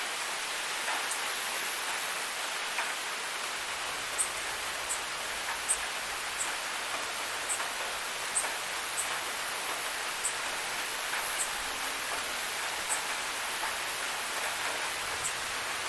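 Steady, soft rain falling. From about four seconds in, short high cricket chirps come through it, roughly once a second.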